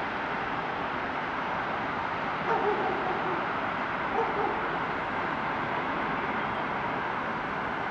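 Steady distant traffic noise, with two short animal calls standing out over it, the first about two and a half seconds in and the second about four seconds in.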